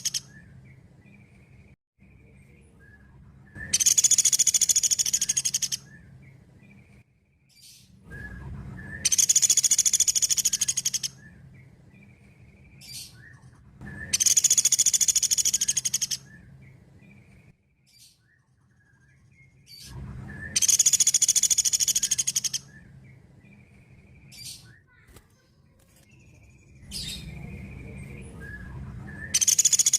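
Pelatuk beras bird calling: loud, high-pitched rapid trills about two seconds long, repeated every five to six seconds, with faint short notes between them.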